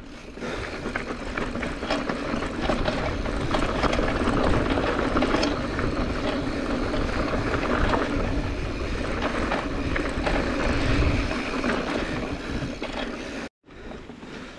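Mountain bike descending a rough dirt and rock trail: tyres rolling over dirt and loose stones, the bike rattling over bumps, with heavy wind and rumble noise on the handlebar-mounted camera. The noise builds up over the first second and cuts off suddenly near the end.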